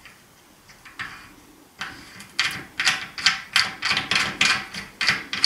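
Threaded locking knob on a metal mitre-saw-stand bracket being turned by hand, its screw scraping in short rhythmic strokes, about three a second, after a couple of light clicks.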